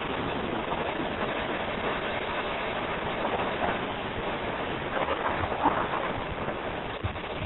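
Hurricane-force wind blowing hard and steadily, with a few louder gusts or rattles about five to six seconds in.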